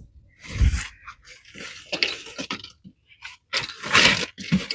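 Rustling and scraping in a rabbit nest box's bedding, in several short bursts, as hands rummage through it to find and count the kits.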